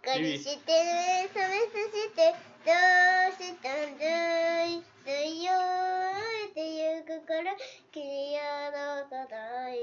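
A young girl singing a tune in several short phrases of held, sliding notes, with brief pauses between them.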